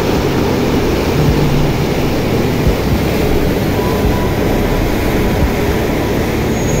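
Water rushing out of a dam sluice outlet and churning as white water over rocks, a loud steady roar.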